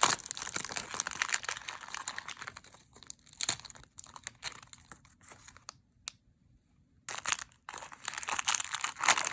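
Plastic toy packaging being torn open and crinkled by hand, in a long spell of crackling, then a pause of about a second, then another spell near the end.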